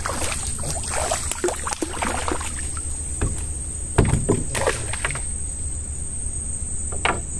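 A hooked fish splashing at the surface beside a small wooden fishing boat, then a heavy knock against the boat about four seconds in, with a few lighter knocks after it, as the rod is handled. A steady high insect drone runs underneath.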